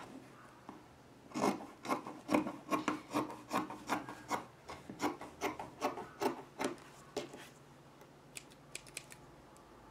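Excess quilt batting being trimmed off a fabric bag panel: a run of short scratchy cuts, about three a second, for some six seconds, then a few faint clicks near the end.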